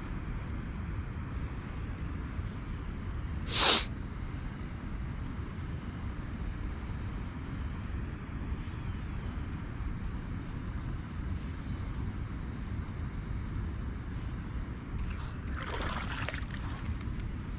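Outdoor ambience by the water with steady low wind rumble on the microphone. A brief sharp swish comes about four seconds in, and a longer rushing, splashy sound near the end.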